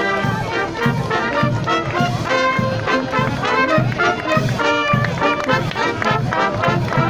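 Bersaglieri fanfare, a marching brass band of trumpets and other brass, playing a lively march, with low notes on a steady beat of about two a second.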